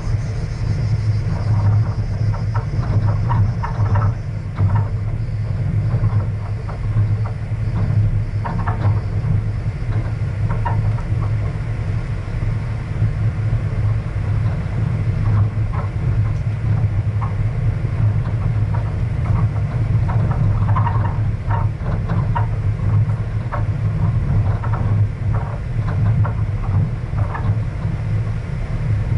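A vehicle driving along a gravel dirt road: a steady, loud low rumble of engine and tyres, with scattered light clicks and rattles.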